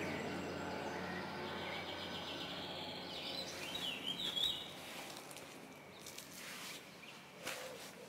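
Outdoor ambience: a low engine hum fades away over the first few seconds. A small bird chirps briefly about four seconds in, and there are a few faint rustles near the end.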